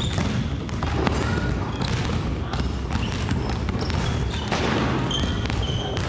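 Several basketballs bouncing on a wooden gym floor, irregular overlapping thumps from children dribbling.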